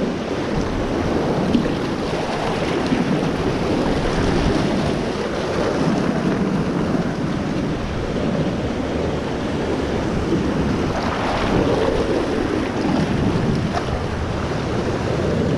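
Steady rush of whitewater around a fishing kayak as it is paddled down through a river rapid.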